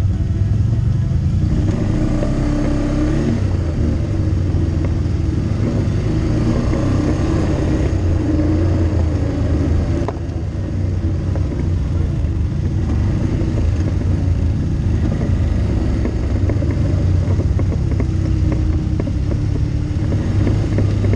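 ATV engine running steadily while riding a dirt trail, a continuous low drone whose pitch rises and falls a little with the throttle.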